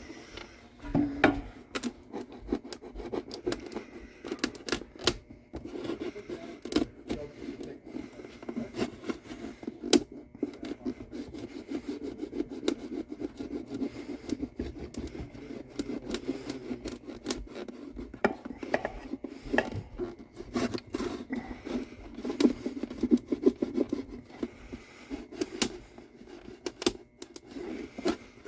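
A hand tool scraping and rubbing along the glue joint of a Gibson A1 mandolin's back as the back is worked loose from the sides, with frequent irregular sharp ticks and clicks.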